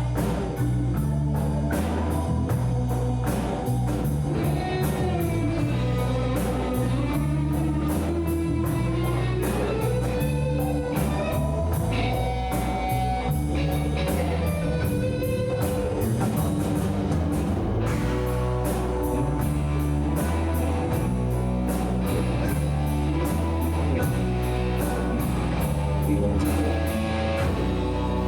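A rock band playing a song live: electric guitar and bass over a steady drum beat, with a melody line that glides up and down.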